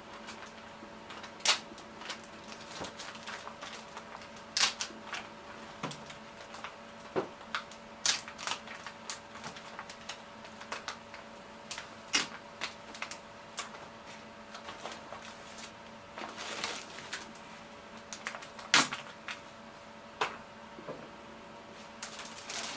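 Kitchen handling sounds while meat-wrapped rice balls are made: scattered irregular clicks and knocks of utensils and containers, with a brief rustle, over a steady faint hum.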